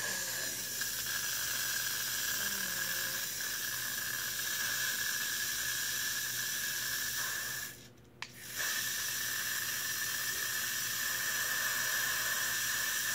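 Aerosol can of Got2b Glued Blasting Freeze hairspray spraying in a long continuous hiss. It stops for about a second past the middle, with one short spurt, then sprays again until it cuts off.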